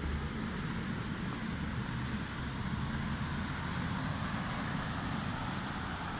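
Steady outdoor background noise: a low, even rumble and hiss with no distinct events.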